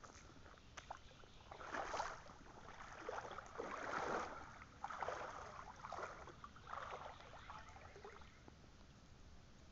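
Faint, irregular sloshing of floodwater, swelling and fading about once a second through the middle, with a few soft clicks.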